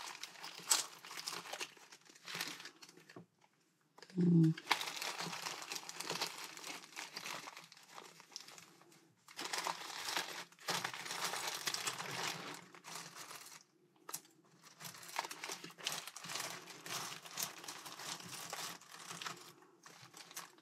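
Rummaging through a tin of buttons: plastic bags crinkling and loose buttons clicking against each other, in several stretches with short pauses. A brief low hum about four seconds in.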